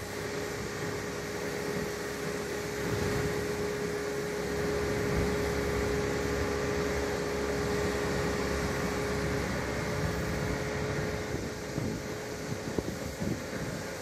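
Mobile boat hoist's motor running with a steady mechanical hum that weakens about nine and a half seconds in. A few short knocks near the end.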